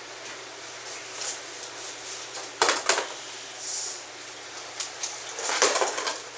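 Long aluminium LED heat sink being handled and lifted out of its cardboard box, with rustling and sharp knocks of metal against cardboard: two knocks about halfway through and a cluster more near the end.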